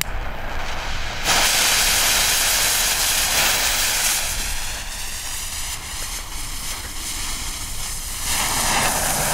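Nico Bengal flares (coloured Bengal fire sticks) hissing and fizzing as they are lit and spray sparks. The steady hiss gets louder about a second in and swells again near the end.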